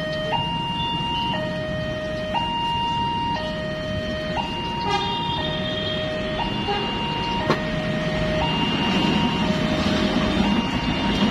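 Railway level-crossing warning siren sounding a two-tone hi-lo alarm that switches pitch about once a second, over steady background noise. A low rumble grows louder in the last few seconds.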